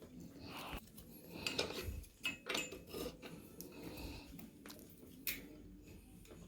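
Faint, irregular clicks and light scraping of a hand tool worked on a mountain bike's suspension linkage bolts, checking that they are tight.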